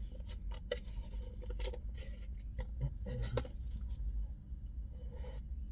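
Someone eating a takeaway meal from a cardboard box: irregular short clicks and scratchy rustles as the box and food are handled, with chewing, over a steady low rumble.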